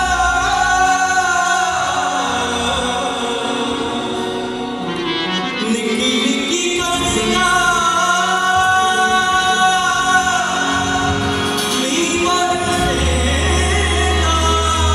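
Live singing with instrumental accompaniment: a voice holding long, drawn-out notes that bend slightly in pitch, with a deep low bass coming in near the end.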